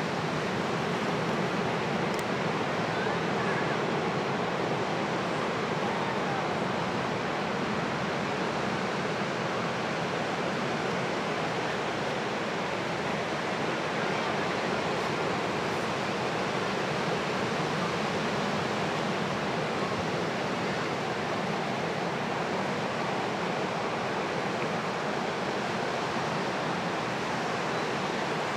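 Ocean surf breaking on the beach: a steady wash of waves.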